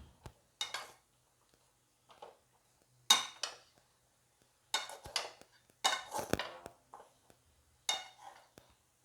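Spatula stirring and scraping a dry banana stem stir-fry in a cheenachatti (iron wok), in short, separate bursts of clatter with brief pauses between.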